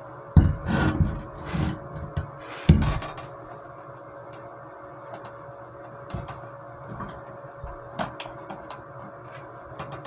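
A series of knocks and clattering thumps, loudest in the first three seconds, then scattered sharp clicks, over a faint steady hum.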